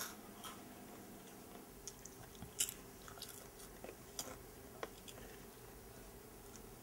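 Faint scattered clicks and crunches of popcorn, about ten short ticks spread over several seconds, the loudest about two and a half seconds in.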